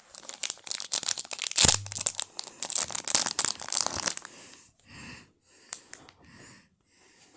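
Plastic wrapping on a trading-card box being torn open and crinkled: dense crackling for about four seconds, then a few softer rustles.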